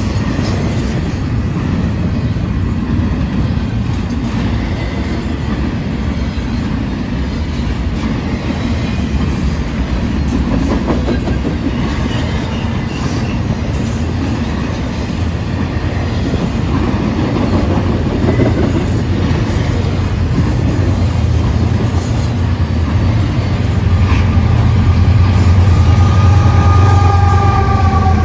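Union Pacific intermodal train rolling past at speed, a steady rumble of wheels on rail under trailers and stacked containers. Over the last few seconds the low rumble swells as a mid-train distributed-power diesel locomotive draws near, with a thin high whine.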